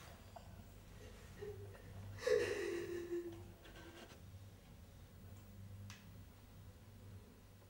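Faint room tone with a low steady hum. About two seconds in, a brief sound falls in pitch, with a few faint clicks after it.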